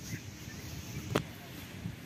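A single sharp click about a second in, over a faint outdoor background with a few soft low thuds.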